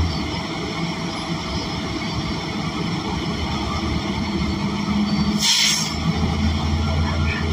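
Inside a CNG city bus near the rear, its Cummins Westport L9N natural-gas engine and drivetrain running with a steady low drone. A short hiss of compressed air, lasting about half a second, comes about five and a half seconds in.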